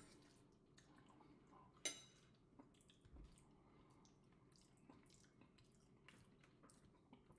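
Faint eating sounds, mostly near silence: scattered light clicks and taps of cutlery against the dish, with one sharper click about two seconds in.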